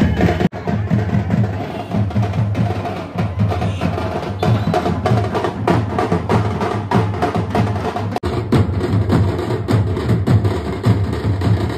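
Procession drums, including a hand-beaten frame drum, playing a fast, loud, driving rhythm, with two very brief breaks in the sound about half a second in and about eight seconds in.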